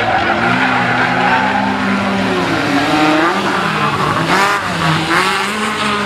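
Small hatchback rally car's engine revving hard through a tight section of a special stage, its pitch climbing and dropping several times as the driver lifts, shifts and accelerates again.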